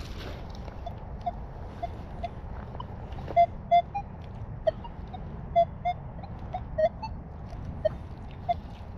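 Nokta Legend metal detector sounding short, high target beeps through its built-in speaker, about twenty in an uneven series, as the coil is swept back and forth over a buried non-ferrous target.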